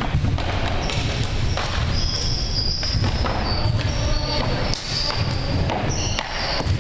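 Floor hockey sticks and ball clacking on the wooden gym floor during shooting practice, several sharp hits. Sneakers squeak briefly on the hardwood a few times.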